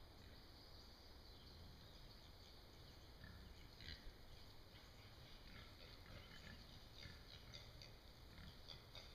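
Faint, scattered short squeaks and rustles from a group of feral hogs moving unseen through the woods, more frequent in the second half.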